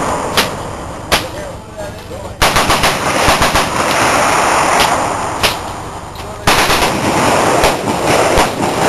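Fully automatic firearms on a machine-gun firing line: two single shots, then a dense stretch of rapid automatic fire about two and a half seconds in that eases off, and a fresh loud burst about six and a half seconds in.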